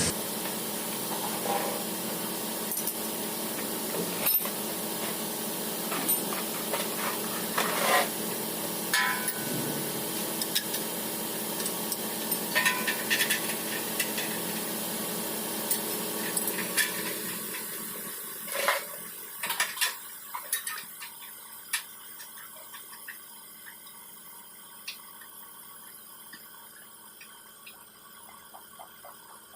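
Scattered metallic clinks and knocks of rear bumper parts being handled and fitted, over a steady hiss that fades away a little past halfway.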